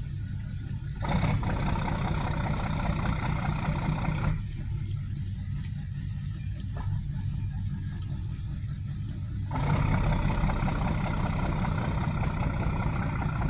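A steady low engine hum from an idling motor. A hiss over it comes in about a second in, drops away around four seconds in, and returns near ten seconds.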